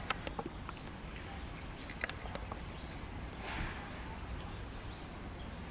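A small bird giving a series of short, high chirps, roughly one every three-quarters of a second, over a faint outdoor background with a few light clicks.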